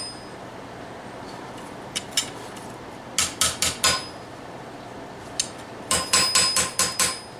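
Hammer blows on a forged steel knife blade over an anvil, each strike ringing: two taps about two seconds in, four quick strikes around three to four seconds, a single tap, then a run of about six near the end. These are light finishing blows cleaning up the blade.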